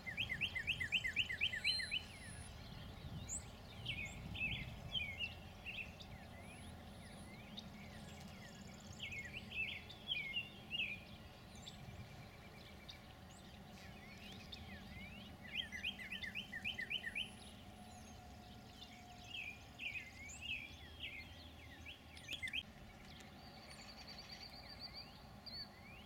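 Songbirds singing in short phrases every few seconds, one of them a quick run of rapidly repeated notes, over a low steady background noise.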